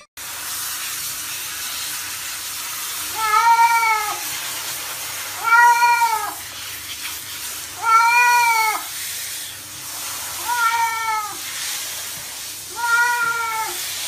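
A cat being bathed under a shower meows five times, each call drawn out and arching up then down in pitch, about every two and a half seconds. A hand-held shower head sprays water over it in a steady hiss.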